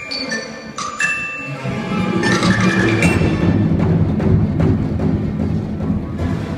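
Chinese orchestra music: a few struck, ringing mallet-percussion notes open, then from about two seconds in a loud, low, fast-struck drum rumble builds under the ensemble and carries on.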